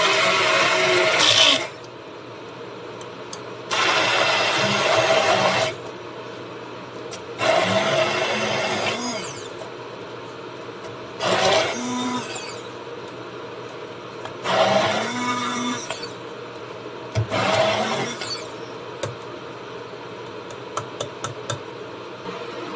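Hand-held immersion blender pulsing in a tall plastic beaker, pureeing onion, chilli, ginger and garlic into a thick paste. The motor whirs in six separate bursts of one to two seconds each, with pauses between, and the later bursts are shorter.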